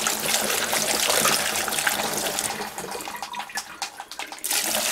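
Two-stroke petrol mix pouring through a funnel into a fuel canister: a steady splashing gush that thins and gurgles about three seconds in, then stops near the end.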